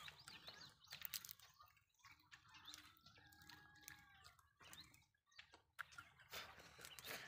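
Near silence: faint scattered clicks and rustles, with a faint held tone lasting a little over a second about three seconds in.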